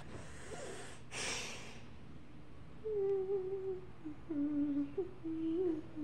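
A young girl humming a wordless tune, a string of held notes that step up and down, starting about three seconds in. Before it come two short hissy puffs.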